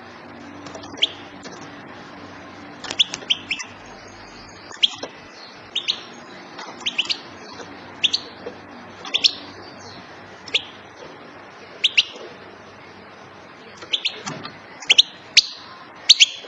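Female European goldfinch calling: short, sharp chirps repeated roughly once a second, some in quick pairs or threes, over a steady background hiss.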